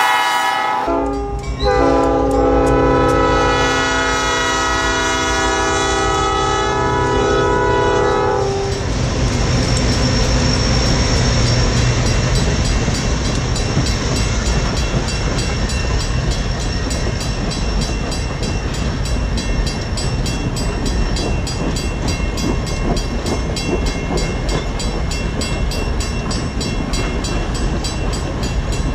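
Diesel locomotive's multi-chime air horn: one blast ending just under a second in, then a long blast of about seven seconds as the train nears a grade crossing. After it comes the steady rumble of passenger coaches rolling past, with wheel clicks.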